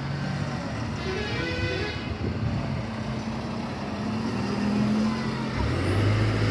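Loaded heavy truck's diesel engine running at low speed as it turns through a hairpin bend, with a short high-pitched tone about a second in. A lower, louder engine hum comes in near the end.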